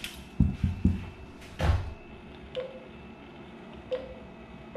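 A few dull thumps and one louder knock against the ATM, then short electronic beeps from its keypad as keys are pressed, twice in the second half and once more at the very end, while the machine holds on to a stuck card.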